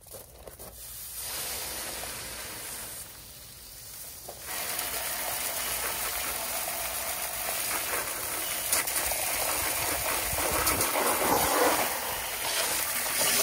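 Steady hissing spray that starts about a second in, eases briefly, then runs louder from about four and a half seconds in, with a few scattered clicks.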